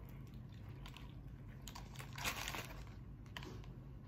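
A person biting into and chewing a sandwich, with a few soft crunching and paper-crinkling noises, the loudest about two and a half seconds in.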